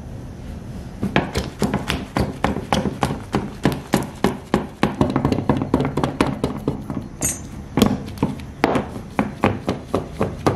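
Hands pressing and punching patir dough flat on a round plate, a fast run of thumps and knocks about four a second, starting about a second in.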